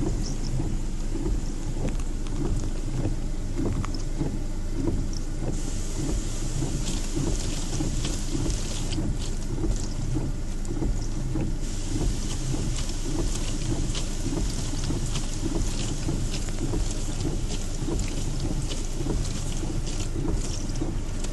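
Windshield wipers sweeping a wet windshield freshly treated with a water-repellent coating, over the steady low rumble of a running car. A hiss of water on the glass grows louder about five seconds in.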